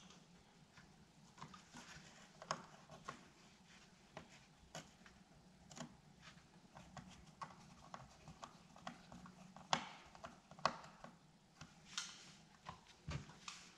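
Small hand screwdriver driving screws to fasten a plate into the plastic housing of a Philips DreamStation CPAP machine: irregular light clicks and taps of the tool, screws and plastic, with a few sharper clicks in the later seconds.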